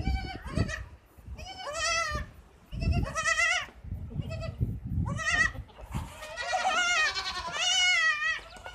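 Newborn goat kid bleating, several high, quavering bleats in a row, the last one long.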